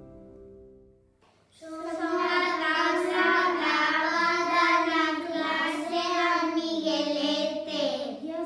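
The last strummed acoustic guitar chord dies away, then about a second and a half in, child singing starts: a held, wavering melody line that runs on without instruments.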